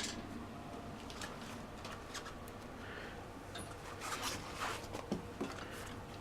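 Hand handling of a motorcycle tyre and inner tube: light rubbing of rubber with a few small clicks and knocks, busiest about four to five seconds in.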